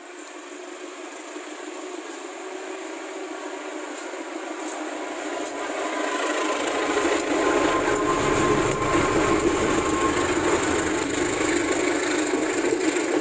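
A train approaching fast and passing through a station: the rumble grows louder over the first six seconds or so, then holds loud with rail clatter and wheel noise as it runs by at about 100 km/h.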